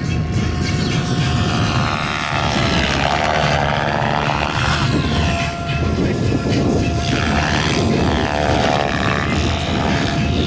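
Electric radio-controlled helicopter (SAB Goblin 700) flying aerobatics: rotor blades swishing over the motor's whine, the pitch sweeping up and down twice as it manoeuvres.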